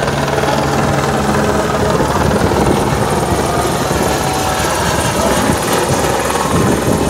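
Helicopter flying low overhead, its rotor blades beating in a fast, steady, loud chop.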